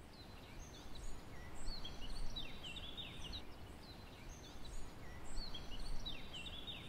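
Birds singing over a steady background hiss: short chirps and quick whistles, busiest in two bursts of song about four seconds apart.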